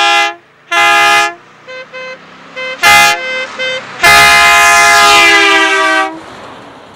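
Compressed-air horn on a 1977 VW Westfalia, fed from a 3-gallon air tank, blown in several short loud blasts and then one long blast of about two seconds whose pitch sags slightly as it ends. Fainter short toots come between the loud blasts.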